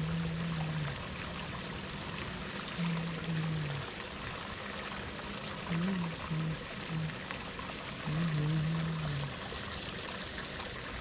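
Steady rush of flowing water, with a low note sounding several times, each lasting up to about a second.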